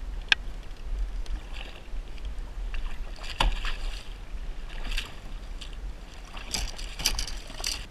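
A small striped bass being landed at the side of a kayak: several short splashes and knocks about a second apart, the last ones in a quick cluster near the end, over a steady low rumble.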